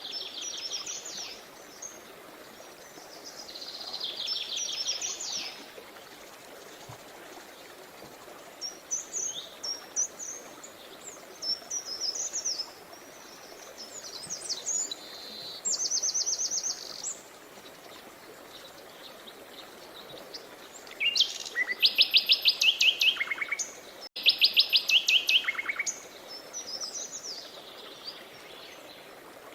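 Songbirds singing in short, repeated phrases of trills and chirps over a steady rush of flowing river water. The loudest is a pair of fast trills about two-thirds of the way through.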